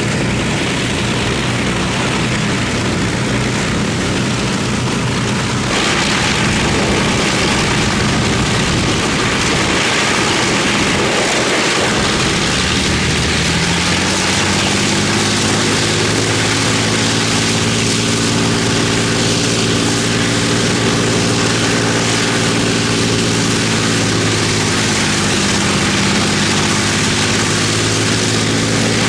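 Avro Lancaster's four Rolls-Royce Merlin V12 piston engines running together on a ground run, propellers turning, with a loud, steady drone. About halfway through, the engine note rises and then holds at the higher pitch.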